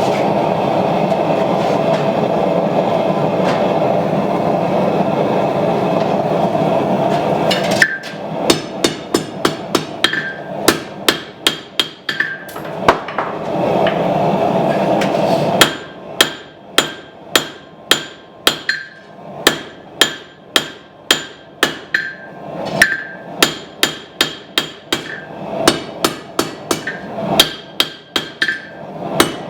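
Hand hammer striking the hot steel of a knife tang on an anvil, about two blows a second with a metallic ring, in two runs. Before and between the runs there is a steady rushing noise.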